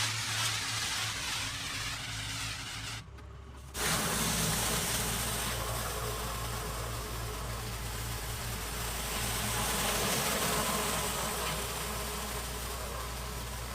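Pressure washer engine running steadily under a constant hiss of spraying water. The sound drops out abruptly for under a second about three seconds in, then carries on.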